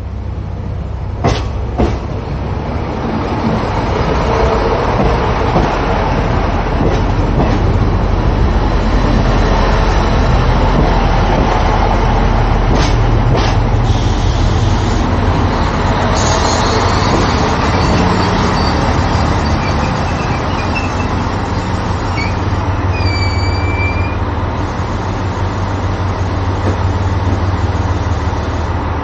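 Diesel railcar set (KiHa 185-series tourist train) running slowly alongside the platform and drawing to a stop, its diesel engines giving a steady low drone. A few sharp clicks of wheels over rail joints or points come about a second in and again midway, and brief high squeals, typical of brakes as it stops, come later on.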